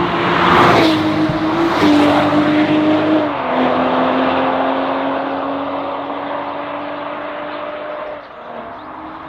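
BMW 840i's turbocharged 3.0-litre inline-six running through an ARMYTRIX turbo-back Valvetronic exhaust while accelerating. Its note drops in steps at three gear changes in the first few seconds, then climbs slowly, and falls away about eight seconds in.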